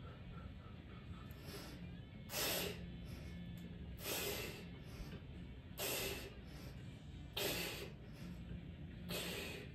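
A man's forceful breaths, five short ones about a second and a half apart, one with each rep of a set of bodyweight dips.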